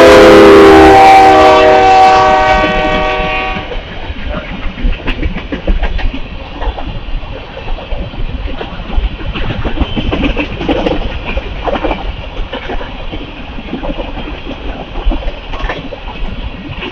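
A Union Pacific locomotive's multi-chime air horn blows a loud chord that drops in pitch about half a second in as it passes, then stops about three and a half seconds in. After that come the rumble and clickety-clack of the freight train's grain hopper cars rolling by, with irregular knocks from the wheels and couplers.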